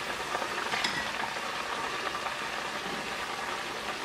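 Food frying on an electric stovetop: a steady sizzle of hot fat, with a light tap just under a second in.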